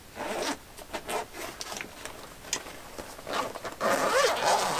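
Zipper of a padded guitar gig bag being pulled open in a run of short zips, louder near the end.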